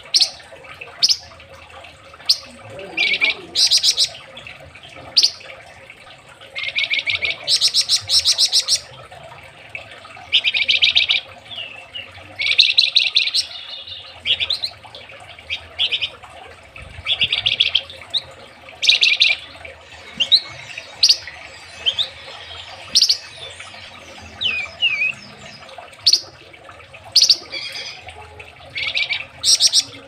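Flamboyan songbird singing in short, rapid bursts of high trilled notes, fired off one after another every second or two, with a few thin sliding whistles in between.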